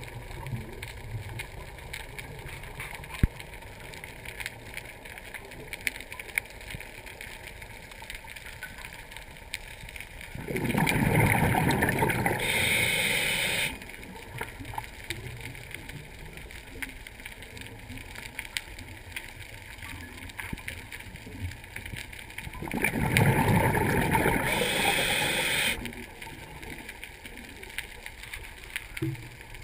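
Underwater recording: two loud bubbling rushes, each lasting about three seconds and coming roughly twelve seconds apart, over a steady low underwater background. The pattern fits a scuba diver's exhaled bubbles from the regulator.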